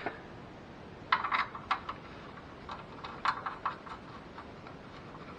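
Short clusters of light clicks and taps from hand tools and the drain plug while the oil pan drain plug goes back in: a few clicks about a second in and a few more past three seconds.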